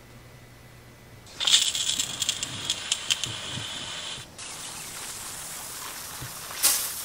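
Garden hose spray nozzle spraying water over trays of plant cuttings: a loud hiss with pattering that starts suddenly about a second and a half in. It drops out for a moment around four seconds, then goes on more softly, with a short louder burst near the end.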